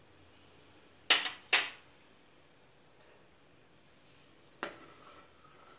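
Two sharp clinks of a utensil against a steel pot, about half a second apart, then a lighter single click near the end.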